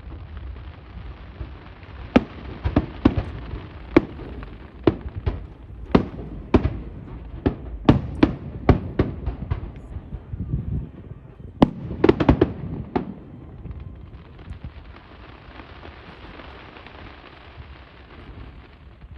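Aerial fireworks shells bursting: a string of sharp, irregular bangs, a quick cluster of them about twelve seconds in, then a steady hissing crackle near the end as the bursts stop.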